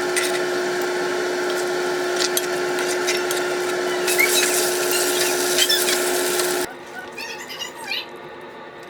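A machine running with a steady hum and hiss, with scattered clicks, cutting off abruptly about seven seconds in.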